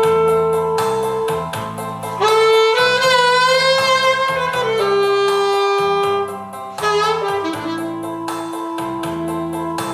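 Solo saxophone playing a slow melody in long held notes over an accompaniment with a steady beat; about three seconds in, one note swells and bends with vibrato before the line steps down.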